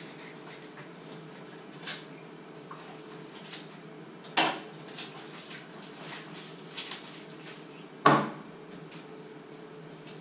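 Kitchen utensils and dishes being handled at a cutting board and stove: scattered light clicks and clinks, with two sharp knocks about four and eight seconds in, the second the loudest.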